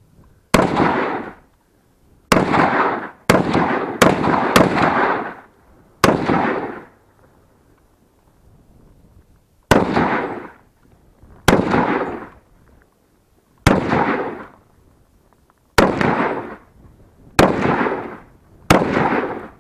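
Semi-automatic M1919 Browning .30 caliber rifle firing twelve single shots at uneven intervals, several in quick succession near the start, then about one every one and a half to two seconds. Each sharp report is followed by about a second of echo.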